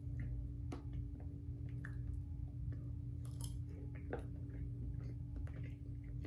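Faint chewing, with scattered soft clicks of chopsticks against a plastic food container, over a low steady hum.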